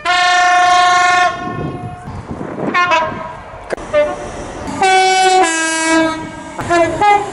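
Train horns sounding in a run of separate blasts. A long loud blast opens, short blasts falling in pitch come around three seconds in, then a two-tone call steps from a higher note to a lower one about five seconds in, and short toots sound near the end.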